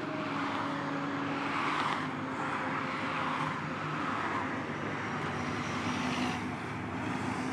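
Road traffic: cars driving past one after another, their tyre and engine noise swelling and fading, over a low steady hum.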